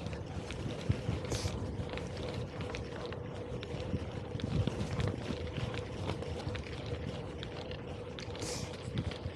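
Gravel bike rolling over a gravel track: steady tyre rumble and crunch with many small rattles and clicks, and wind on the microphone. A steady hum runs underneath, and two short hisses come about a second in and near the end.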